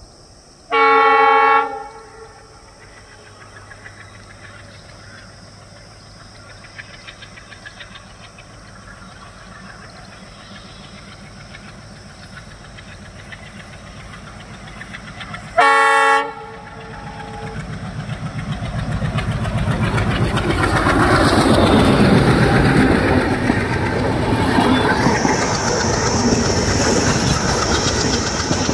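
Horn of an ALCO WDM-3D diesel locomotive, one blast about a second long near the start and a shorter one about halfway, over the low hum of its diesel engine drawing closer. In the second half the train passes and the rumble and clickety-clack of the express coaches on the rails grow loud, with a high steady squeal from the wheels joining in near the end.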